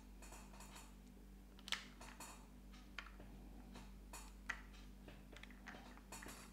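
Near silence with a few faint, sharp clicks and taps as the opened power tool's parts are handled, over a low steady hum.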